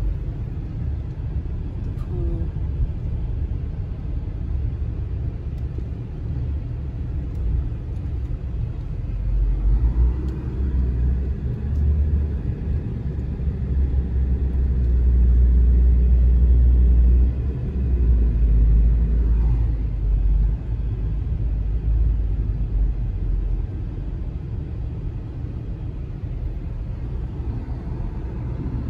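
Low rumble of a car's engine and tyres heard from inside the cabin while driving slowly; it swells for several seconds midway, then drops back.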